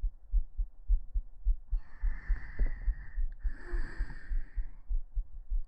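A heartbeat picked up by a microphone held against the chest, beating steadily in lub-dub pairs. Two soft breaths pass close to the microphone, one about two seconds in and a second about a second later.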